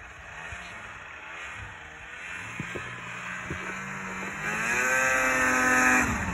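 Snowmobile engine running at low revs, then revved hard about four and a half seconds in: its pitch climbs and holds high as it gets louder, then drops suddenly just before the end.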